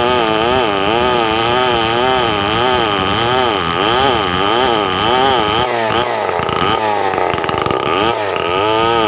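Stihl 070 two-stroke chainsaw running at high revs while ripping a log lengthwise along the grain, its engine pitch wavering up and down about once a second. The steady high whine of the chain drops away for a couple of seconds past the middle, then returns.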